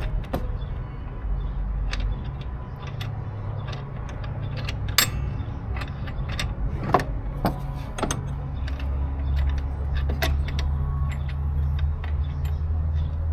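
Scattered metallic clicks and clinks of a bolt and hand tools against the mower's metal parts while someone tries to get the bolt to catch, over a steady low hum. The sharpest clicks come about five and seven seconds in.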